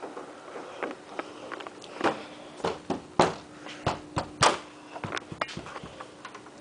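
Interior door being handled: a series of sharp knocks and clunks from the door and its knob, the loudest about three and four and a half seconds in.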